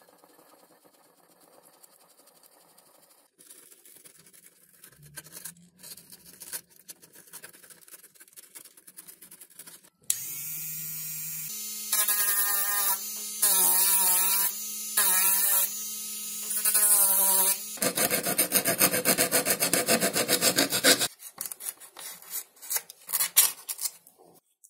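Light scratching of foam for several seconds, then a small rotary tool with a sanding drum starts up about ten seconds in and runs with a steady whine, loud sanding hiss coming in spurts as the drum is pressed into the foam wing to hollow a wheel well. This gives way to a stretch of dense scraping and then rapid scratchy strokes of a utility knife cutting foam near the end.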